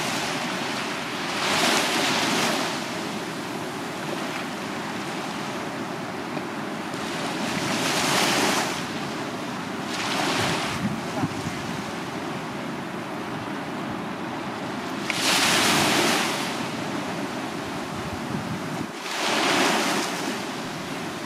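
Small waves breaking and washing up a sandy beach: a steady surf hiss with a louder rush of foamy wash every few seconds, five in all.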